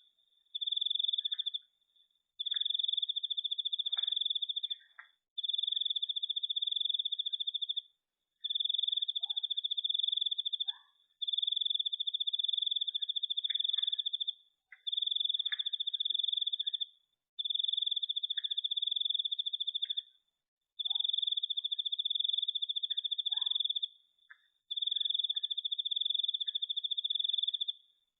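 A cricket trilling in a high, even buzz, in bouts of one to two seconds broken by short pauses, about eleven times over. Faint short chirps sound underneath.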